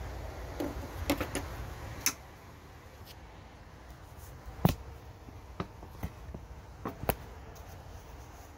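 Scattered sharp clicks and light knocks from hands handling plastic parts, about eight in all, the loudest a little past halfway. A low rumble underneath fades out about two seconds in.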